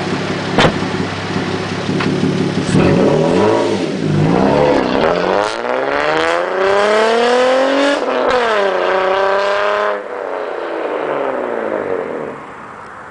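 2001 Nissan Maxima's V6 exhaust during a fly-by. It runs steadily at first, with a sharp click about half a second in, then accelerates hard with the note climbing. The pitch dips at a gear change about eight seconds in and climbs again, then the throttle is cut about ten seconds in and the note falls away and fades.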